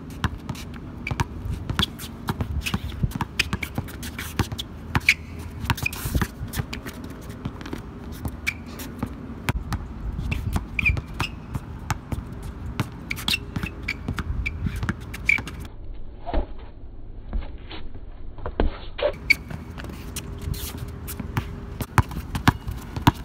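A basketball being dribbled hard on an outdoor court surface, a rapid run of sharp bounces, uneven in rhythm as the players drive and change direction.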